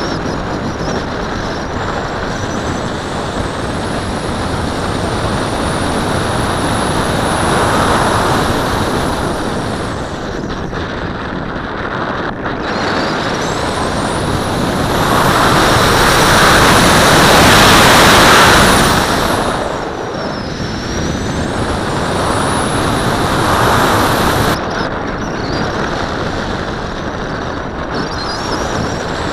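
Air rushing past an onboard camera on a Tracer RC glider in flight, with a thin high whistle that rises in pitch. About halfway through, as the glider dives to build speed for an outside loop, the rush and the whistle grow loudest and then fall away. The whistle climbs again later and cuts off suddenly.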